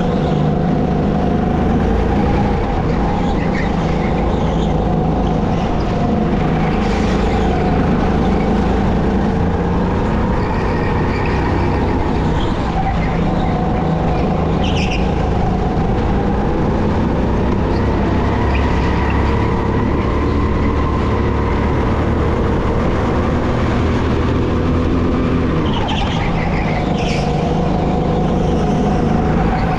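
SR5 200cc kart engine running continuously on track, its pitch drifting up and down with speed and dropping sharply a little before the end before climbing again.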